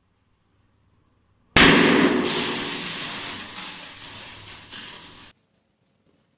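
A balloon bursts with a sudden loud bang about a second and a half in, followed by a few seconds of fading, rushing noise that cuts off abruptly.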